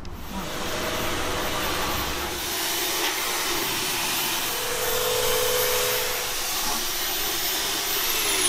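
Handheld electric fogger running, its motor blowing a steady hiss of decontamination mist with a thin high whine. Near the end the whine slides down in pitch.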